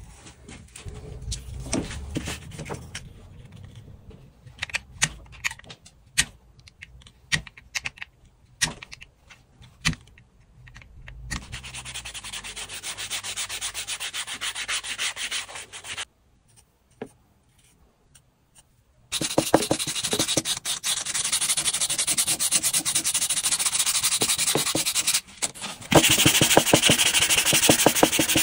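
Sandpaper rubbing on a handmade fishing lure body. It starts with scattered taps and handling clicks, then becomes a steady rasp, pauses for a few seconds, and resumes louder in quick strokes.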